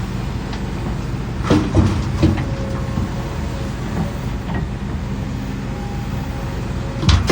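Heavy diesel excavator engine running steadily, with a cluster of sharp knocks and clanks about one and a half to two and a half seconds in and another loud knock near the end.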